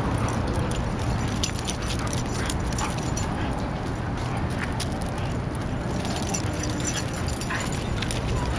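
Dogs playing, with faint short whimpers and yips over a steady low outdoor rumble.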